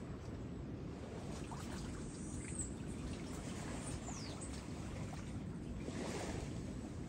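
Shallow seawater lapping and trickling, with a brief swell of splashing about six seconds in and two faint, high falling bird chirps near the middle.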